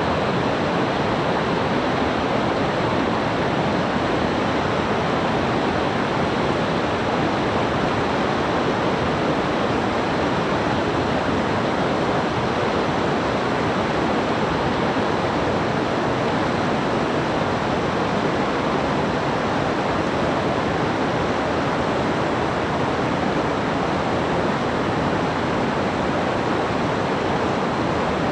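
Fast-flowing river water rushing over rocks, a steady, even rush with no breaks.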